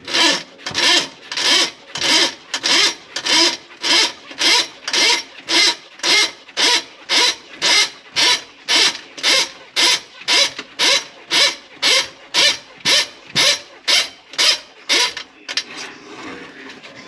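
Rhythmic scraping strokes, a little more than two a second and very even, that stop about fifteen seconds in.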